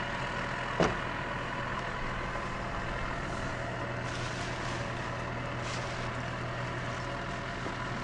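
Yanmar AW82GV combine harvester's diesel engine running at a steady speed, a level hum with no revving. A single short, sharp sound stands out about a second in.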